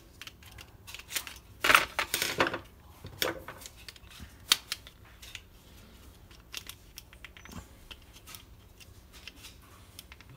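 Clicks and scrapes of a screwdriver prying apart the small plastic motor and gear housing of a car's electric door-lock actuator. The loudest cluster of clicks comes about two seconds in, followed by single sharper clicks and then scattered light ticks.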